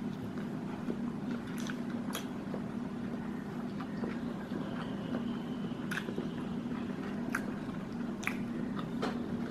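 A person chewing a mouthful of crispy fried-chicken burger, with scattered short crisp clicks from the mouth, over a steady low hum.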